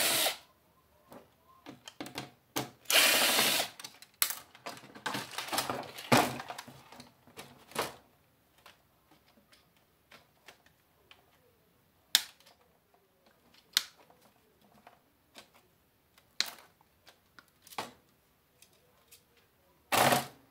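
Cordless screw gun running in short bursts, backing screws out to free a DVD drive from a TV's metal chassis, the longest run about three seconds in and another just before the end. Between the runs come single sharp clicks and knocks of screws and parts being handled.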